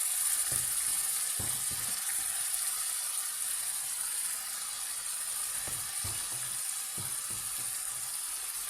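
Frozen chunks of curry base sizzling in a hot frying pan of cooked onions: a steady hiss that slowly eases, with a few soft low knocks.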